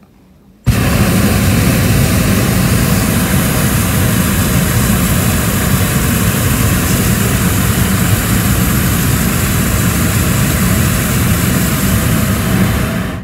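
Hot air balloon's propane burner firing in one long blast: a loud, steady rushing noise that starts abruptly about a second in and cuts off near the end.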